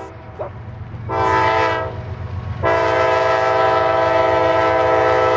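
Freight locomotive air horn sounding for the grade crossing: a short chord blast about a second in, then a long blast from a little before the three-second mark, held to the end. Under it runs the low rumble of the passing freight train.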